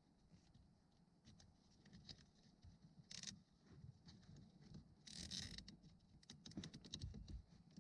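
Faint handling of a plastic zip tie and wiring under a dashboard: scattered small clicks, and two short rasps about three and five seconds in as the zip tie is pulled tight.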